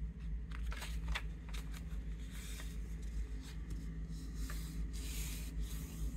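A sheet of white paper rustling and crackling as hands fold it in half and press the crease flat against a hard board, a string of short crisp rustles.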